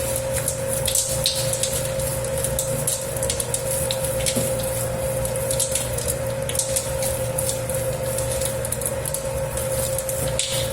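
Dough kneading machine working a 10 kg batch of pizza dough: a steady motor hum with a constant whine. Irregular short slaps and squelches of the dough come through over it.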